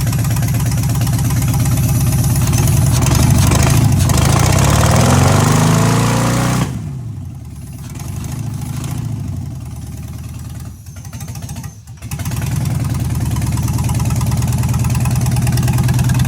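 5.3L V8 running rough on an engine stand, revving up over a few seconds, then dropping away suddenly about halfway through. It sputters at a lower level for a few seconds and picks back up to a steady run near the end. The owner puts the poor running down to two unplugged injectors and a broken coil pack.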